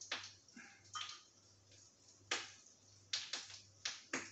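Light, irregular clicks and taps of hands crumbing a fish fillet on a ceramic plate, pressing a breadcrumb coating onto the cod from a bowl.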